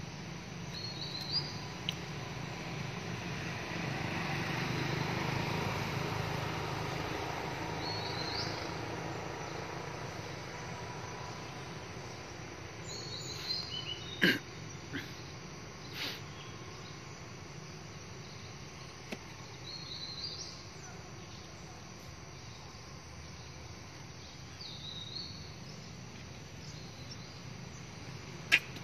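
Outdoor woodland ambience: a steady background hiss with a short high chirp that repeats every five to seven seconds. Two sharp clicks, about halfway through and near the end, stand out as the loudest sounds.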